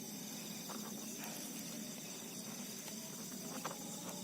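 Steady chorus of night insects such as crickets, with a few faint soft clicks.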